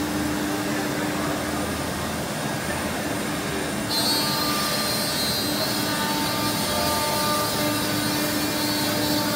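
MultiCam CNC router running: steady machine noise with a low hum, and a higher whine that comes in suddenly about four seconds in.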